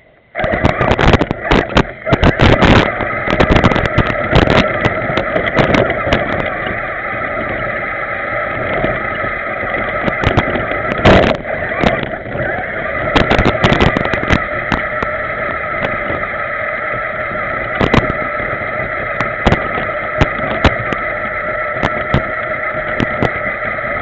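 Remote control 4x4 truck's motor and gears whining at a steady pitch as it drives, heard from on board. Frequent sharp knocks and rattles come from the truck bumping over rough ground.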